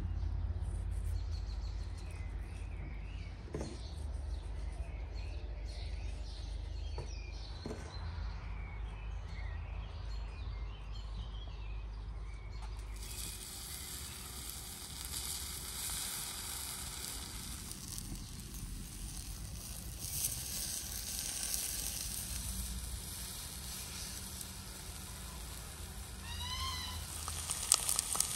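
Birds chirping over outdoor ambience. About halfway through, eggplant and potato slices begin sizzling on a flat stone slab heated by a wood fire, a steady hiss with a few taps near the end as more slices are set down.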